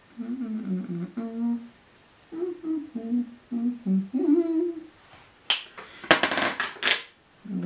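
A woman humming a tune with closed lips, in two short phrases. Near the end comes a loud scratchy rattle lasting about a second and a half.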